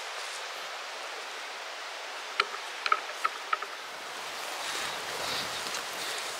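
Steady outdoor wind hiss while walking through dry grass and saw palmetto, with a quick run of five sharp clicks a little past the middle. About two-thirds of the way in, a low rumble of wind on the microphone sets in.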